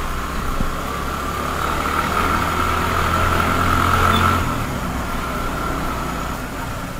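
Motorcycle engine running at low road speed, heard from the bike itself. The sound swells as another motorcycle passes close in the opposite direction about four seconds in, then eases.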